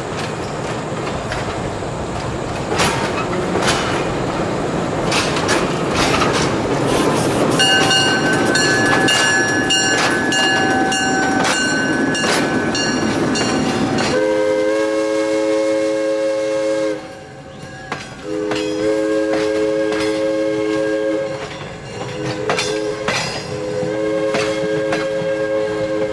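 Diesel switcher locomotive moving with wheel rumble and clicks over rail joints, then a high steady tone for several seconds. About halfway through, its multi-chime air horn sounds long, long, short, long: the grade-crossing signal.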